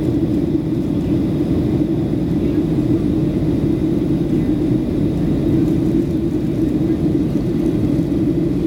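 Boeing 737-700 cabin noise on approach: its CFM56 jet engines and the rush of air make a steady drone with a strong low hum, unchanging throughout.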